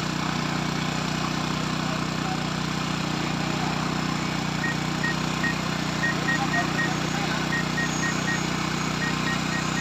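DJI crop-spraying drone's rotors humming steadily. Faint short high pips repeat from about halfway through.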